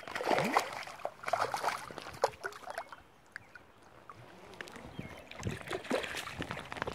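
Close water splashing and sloshing in irregular bursts: a trout thrashing at the surface and a landing net dipped and moved through the river. The splashing is busiest in the first couple of seconds, eases off in the middle and picks up again near the end.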